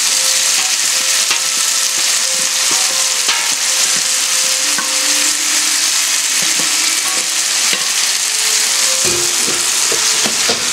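Chicken pieces, cashews and tomato sizzling in a frying pan on a gas stove as cooked spaghetti is tipped in; a steady hiss, with a few knocks near the end.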